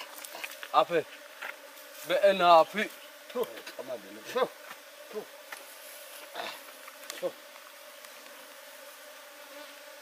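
Wild African honeybees buzzing steadily in a tree-hollow hive being robbed of its honeycomb. Short human vocal sounds break in several times, loudest about two seconds in, then fade out for the last few seconds.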